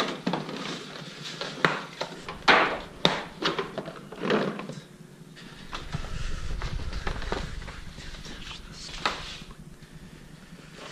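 A timing light's hard plastic carrying case being handled and opened, with a run of sharp clicks and knocks in the first few seconds. Quieter rustling of its cardboard box and paper manual follows.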